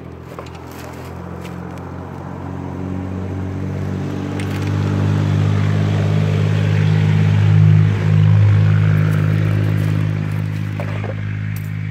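An engine running steadily with a low hum, growing louder for about eight seconds and then easing off.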